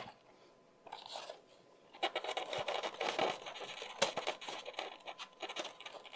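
Rubbing and scraping of a red plastic tail fin being slid onto a foam model plane's wing and handled against the foam packing, starting about two seconds in, with one sharp click about four seconds in.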